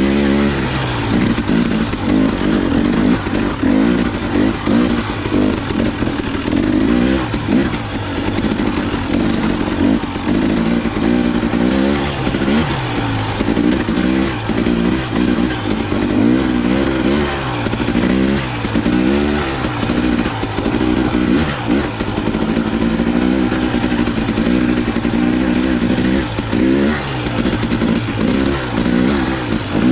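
KTM 300 XC-W 300 cc two-stroke dirt bike engine working at low trail speed, its pitch rising and falling over and over as the throttle is blipped on and off.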